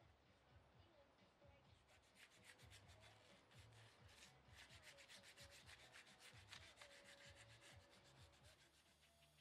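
Faint hand sanding of a carved stone surface with an abrasive pad: quick, short scrubbing strokes several times a second, starting about two seconds in.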